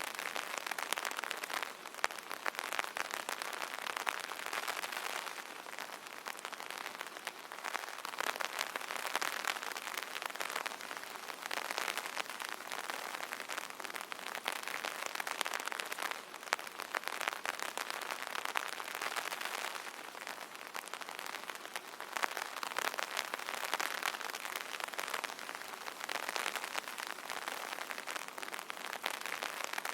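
Rain falling on an umbrella: a dense patter of drops that swells and eases every few seconds.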